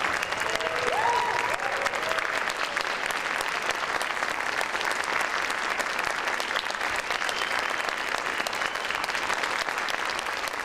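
Audience applauding a concert band after a performance, a dense, steady clapping, with a few cheers from the crowd in the first couple of seconds.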